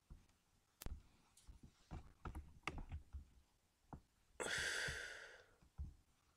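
Faint, scattered clicks and taps of a computer mouse while a web page is scrolled, and a breathy exhale of about a second about two-thirds of the way in, the loudest sound.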